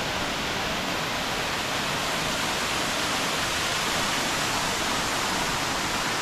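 Waterfall rushing steadily, a loud, even roar of falling water.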